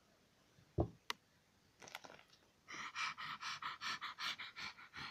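Quick, rhythmic panting breaths, about five a second, a person voicing a toy dog panting. They start after a soft thump about a second in.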